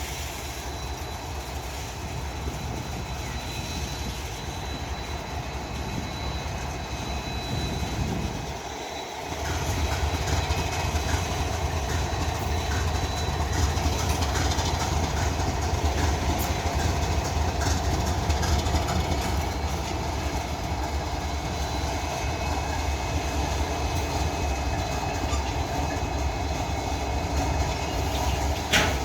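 Freight train rolling past, its cars' wheels clicking over rail joints, with a steady rumble that grows louder about nine seconds in.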